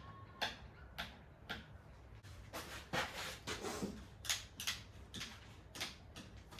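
Irregular knocks and clicks of timber pieces and tools being handled and positioned, with a longer rustling, scraping stretch about three seconds in.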